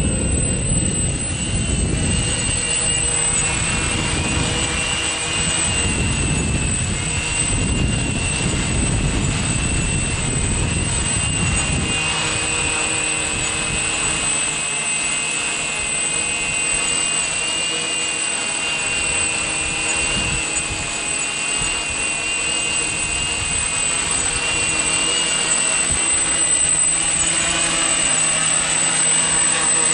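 Quadcopter's electric motors and propellers buzzing steadily as it hovers and flies low, a whine held on several steady pitches. A low rumble under it stops about twelve seconds in.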